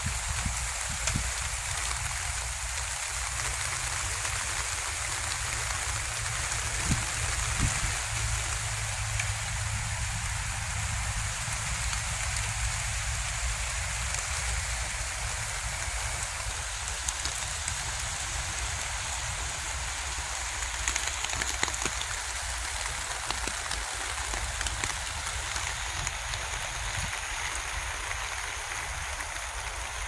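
Steady rain falling on leaves and soil, an even hiss with a few faint drop ticks, over a low rumble on the microphone.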